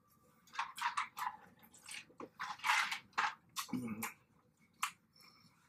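Close-miked chewing and lip-smacking on crispy fried chicken wings: a run of wet clicks and crunches, with a brief low vocal sound from the eater about four seconds in.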